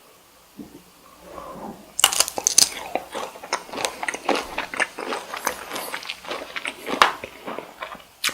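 Close-miked eating of cocktail shrimp: quiet at first, then a sharp bite about two seconds in, followed by steady chewing full of quick clicks and mouth smacks.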